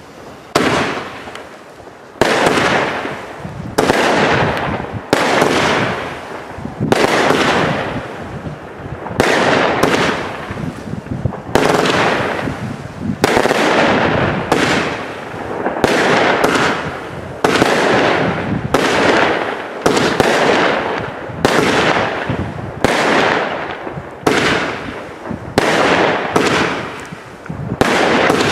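A Steffes-Ollig 36-shot, 25 mm firework battery (cake) firing its shots in quick succession, about one a second. Each is a sudden bang with a tail that dies away over about a second.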